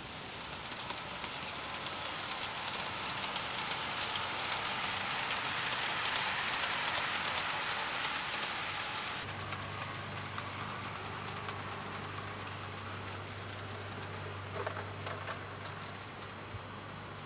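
Garden-railway model train running past, its wheels clicking and rattling over the track, growing louder and then fading. A steady low hum sets in about nine seconds in.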